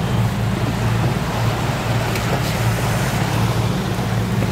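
A boat's engine running steadily with a low drone, under a hiss of wind and sea.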